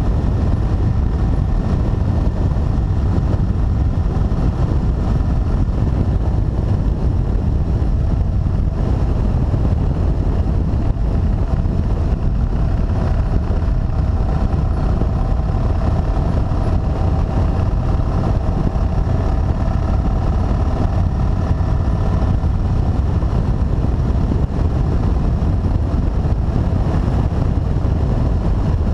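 Cruiser motorcycle running steadily at road speed, heard from a handlebar-mounted camera, with a heavy low rumble of wind on the microphone over the engine's faint steady hum.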